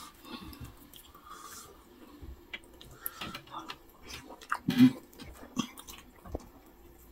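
A person eating fufu with nsala soup by hand: soft wet chewing and small mouth clicks, with one short louder sound about five seconds in.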